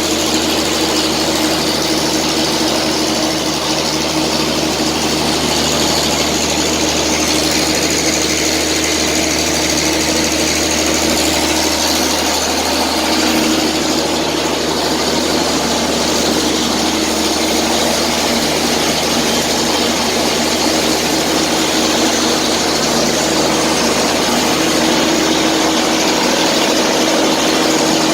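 Biomass flash dryer plant running: electric motors and blower fans making a loud, steady industrial drone with a constant low hum and a rushing noise of air.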